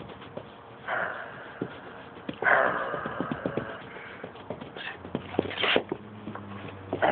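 A small dog's breathy play noises: a few short snorts and one longer huff, with scuffling and small knocks as it wrestles on its back.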